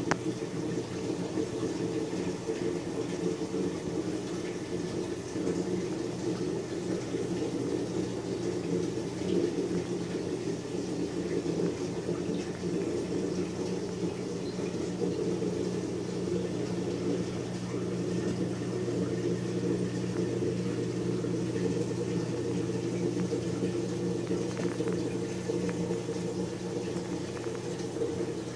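Saltwater reef aquarium's circulation pumps and water flow running steadily: an even mechanical hum with water rushing and gurgling.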